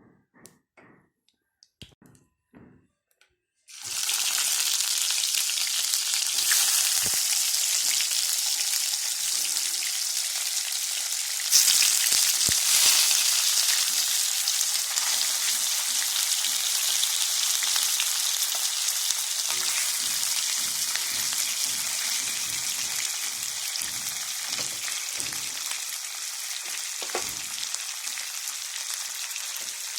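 Fish pieces going into hot oil in a pan: a sudden loud sizzle about four seconds in, a second flare some seconds later, then steady frying that slowly fades. A few faint clicks come before the sizzle starts.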